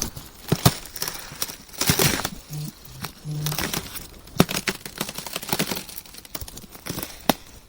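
Ice cracking and crunching: irregular sharp cracks and crackles with short bursts of crackling. The loudest bursts come about two seconds in and just past four seconds.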